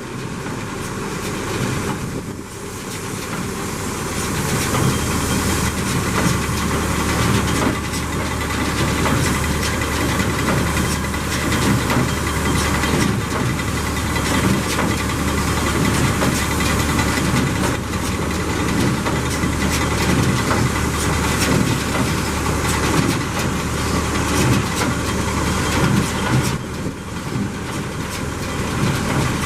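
Massey Ferguson 20 hay baler running off a tractor: a steady engine note with continual mechanical knocking and clatter from the baler's moving parts. It gets louder a few seconds in as the machine comes up to speed.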